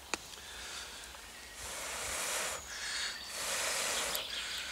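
A person blowing hard into the firebox of a small folding wood-burning stove: two long, hissing breaths of about a second each, to liven a fire that is burning weakly. A single sharp click just at the start.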